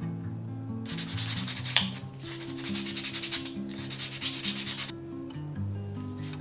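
Sandpaper rubbed back and forth on a wooden spoon in quick strokes, smoothing the wood as part of its upkeep. It comes in two spells, from about a second in and again from about two and a half to five seconds, with one sharp click in the first spell. Soft background music plays underneath.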